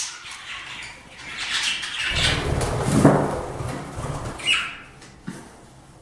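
Budgerigars chirping in short high calls, with a louder rustling noise lasting about two seconds in the middle.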